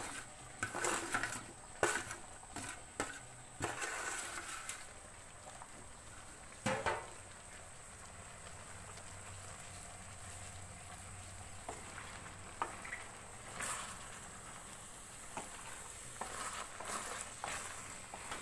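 Chopped vegetable pieces being pushed by hand off a metal plate into a metal kadai: a quick run of knocks and clatters as they drop onto the pan, with a louder clunk about seven seconds in. After that comes a quieter stretch of faint steady hiss with a few scattered light clicks.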